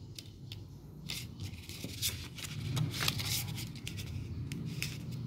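Paper rustling and crackling as a folded cassette J-card insert is handled and unfolded by hand: a run of short crinkles and finger rubs, busiest in the middle.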